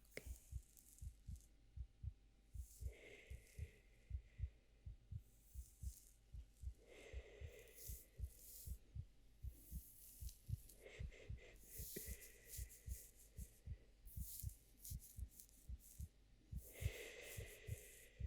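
Steady heartbeat beating low and close throughout. Soft breathy shushes come about every four seconds, with light rustles of hair being stroked between them.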